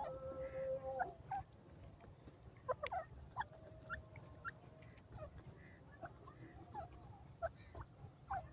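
Grey francolin giving soft, short chirping calls while it forages, scattered irregularly, with a sharp click about three seconds in, over a low rumble. A steady hum stops about a second in.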